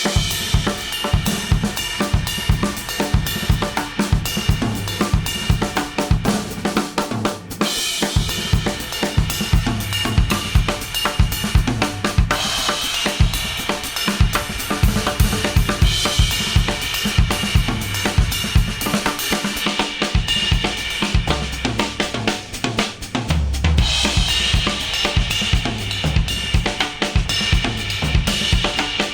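Instrumental music led by a full drum kit playing a steady beat with snare, kick drum, hi-hat and cymbals over a bass line, played back through Apple AirPods with noise cancelling on and picked up in an artificial ear.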